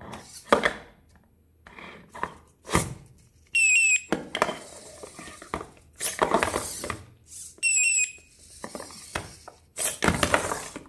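Petoi Bittle X robot dog's servos whirring and its plastic legs knocking and clattering on a smooth tabletop as it is knocked over and thrashes to get back up. Two short runs of high electronic chirps stepping down in pitch come from the robot twice.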